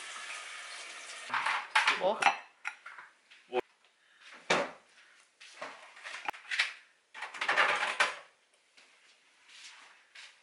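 Plates, a frying pan and utensils clinking and knocking on a kitchen counter in a series of short, separate clatters with a few sharp clicks.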